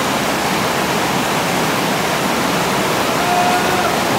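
Whitewater rapids below a waterfall rushing steadily: a loud, even wash of water noise.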